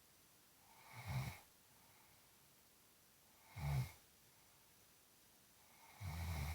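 Snoring in sleep: three snores about two and a half seconds apart, each a short low rattle with a breathy hiss.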